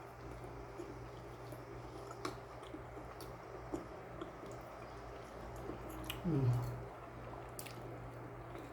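Eating sounds: soft wet chewing with scattered small clicks of food and utensils, over a steady low hum. About six seconds in a short low vocal hum falls in pitch.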